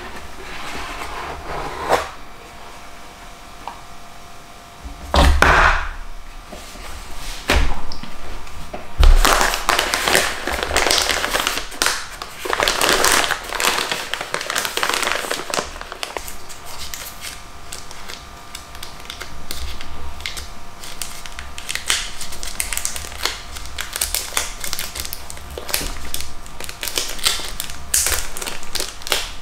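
Cardboard product box being opened and handled, with a few knocks and thumps in the first nine seconds or so, then long stretches of crinkling and rustling from thin plastic wrapping as parts are pulled out and unwrapped.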